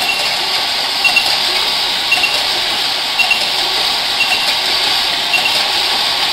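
Automatic EE core assembly, taping and testing machine running: a steady hiss with light mechanical clicks and a short high double beep repeating about once a second.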